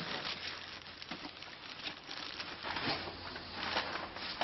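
Plastic bags rustling and crinkling as they are handled and searched, a run of uneven crackles.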